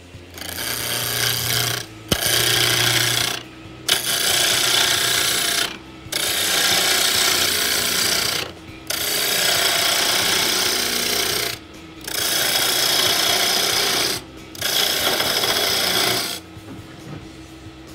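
Wood being worked on a spinning lathe, a cutting tool or sandpaper pressed against the turning piece. It goes in seven scraping passes of about two seconds each, with a brief lift-off between them.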